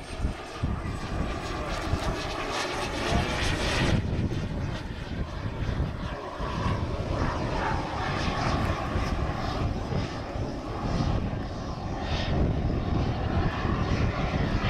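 Engines of a giant-scale radio-controlled Avro Vulcan model in flight, a continuous rushing jet sound that swells and eases as it passes, with a faint high whine over it in the first few seconds.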